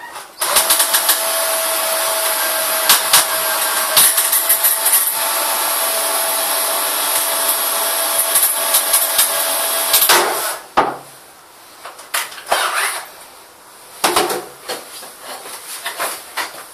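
Cordless drill running at one steady speed for about ten seconds, a constant whine with clicks and rattles over it, then it stops. A few short knocks and rattles follow.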